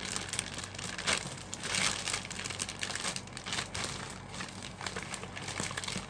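Plastic courier mailer and the clear plastic bag inside it crinkling as hands pull and rummage them open, in uneven bursts, loudest about a second in and again near two seconds.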